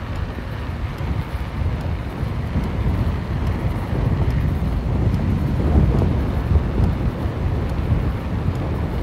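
Wind buffeting the microphone over the low, steady rumble of a vehicle travelling along fresh asphalt.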